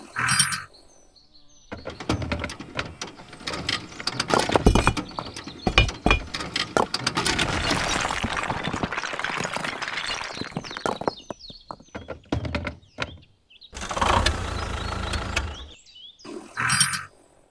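Miniature clay bricks sliding and clattering out of a tipping toy trailer onto sand: a dense run of small clicks and knocks lasting several seconds, followed near the end by a short low hum.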